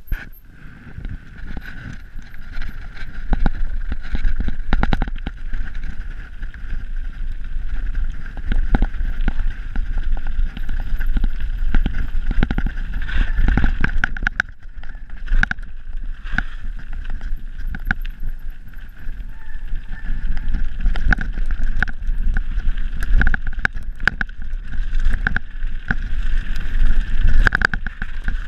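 Scott Genius full-suspension mountain bike ridden fast downhill on a wet dirt trail. Wind buffets the camera microphone and the tyres rumble over the ground, with frequent sharp knocks and rattles from the bike. It gets louder about two seconds in as the bike picks up speed.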